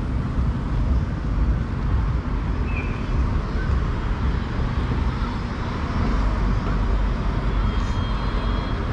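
Steady low rumble of street traffic and road noise as an electric moped rolls slowly to a stop behind a pickup truck.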